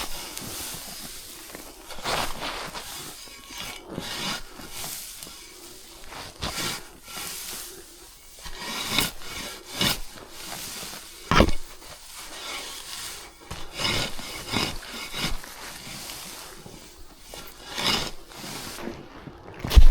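Hay rustling and scraping as a round hay bale is pulled apart by hand, in a run of irregular swishes and scrapes.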